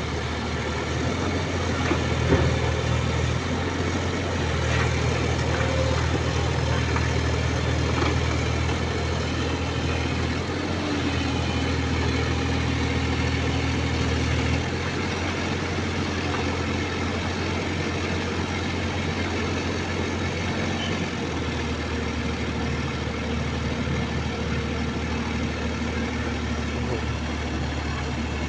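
Kubota mini excavator's diesel engine running at work, its note stepping up and falling back several times as the machine loads a truck.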